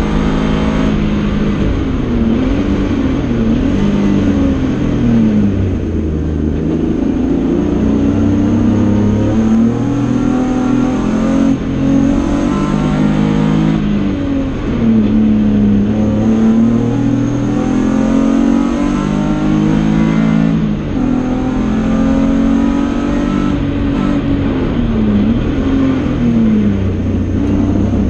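BMW E30 race car's 2.5-litre engine at racing revs, heard from inside the bare, caged cabin, climbing in pitch under acceleration and dropping back again and again as it shifts gears and lifts for corners.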